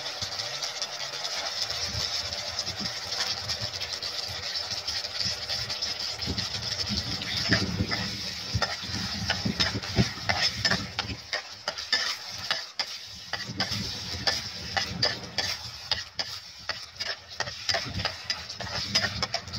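Balls sizzling in a bubbling sauce in a frying pan, stirred with a metal spatula. From about seven seconds in, the spatula knocks and scrapes against the pan many times over the steady sizzle.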